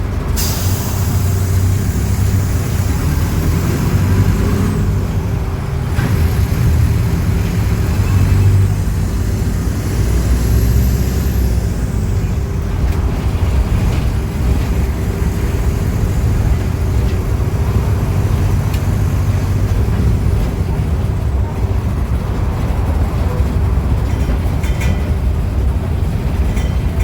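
Diesel engine of a Mercedes-Benz OF-1418 bus running, a steady low drone that swells and eases as the bus is driven. A short hiss comes right at the start.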